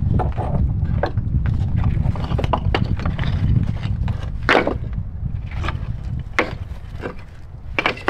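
Flat stones knocking and clacking against one another as they are handled and set into a stone wall, several sharp knocks with the loudest about halfway through, over a steady low rumble of wind on the microphone.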